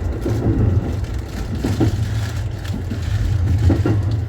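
Running noise inside an E233-3000 series electric commuter train on the move: a steady low rumble of wheels on rail, with irregular rattling over it.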